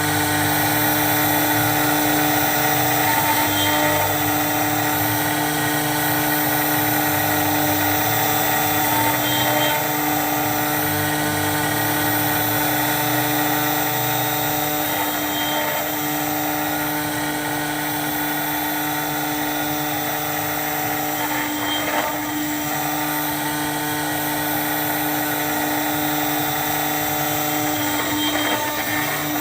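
CNC router spindle running steadily while its cutter mills UHMW plastic, a steady machine tone over cutting noise. The sound changes briefly about every six seconds as the cut shifts.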